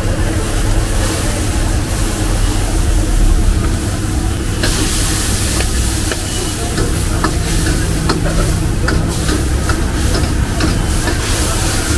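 Chicken frying in stock and oil in a wok over a high gas flame, sizzling while a metal ladle stirs and taps the pan. The sizzle grows louder about four and a half seconds in, with a steady low hum underneath.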